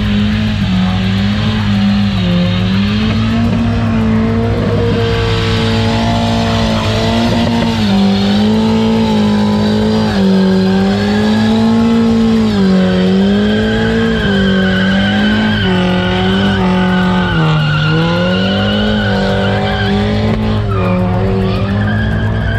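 Front-wheel-drive Volkswagen Golf hatchback doing a burnout: the engine is held at high revs, rising and falling every second or two, while the spinning front tyres squeal.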